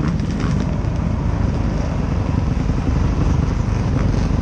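Dirt bike engine running steadily at low revs as the bike rolls slowly along.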